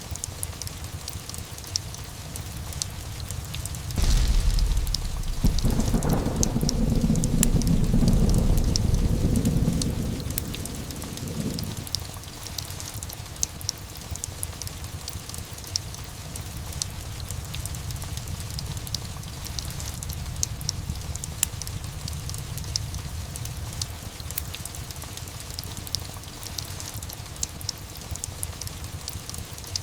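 Steady rain with a clap of thunder about four seconds in that rumbles on for several seconds and dies away by about twelve seconds. Light fireplace crackling ticks through it all.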